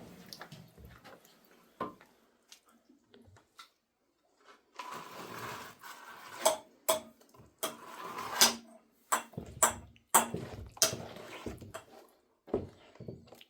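Handling noise: a few faint clicks, then from about five seconds in scraping with sharp, irregular knocks and clacks, roughly one or two a second.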